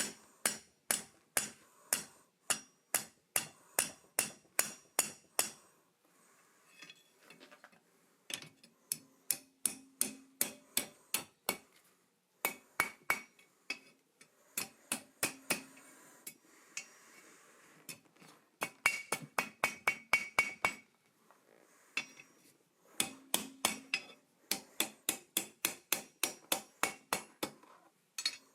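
Hand hammer striking steel on an anvil while forging, in runs of quick ringing blows about two to three a second, broken by several short pauses.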